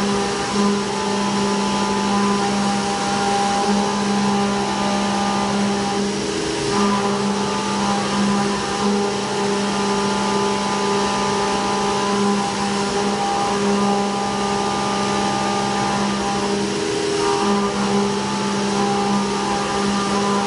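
CNC milling machine's end mill cutting a pocket on a traditional 2.5D racetrack toolpath: steady cutting noise and chip spray with a humming cutting tone. The tone drops out briefly twice, about a third of the way in and near the end.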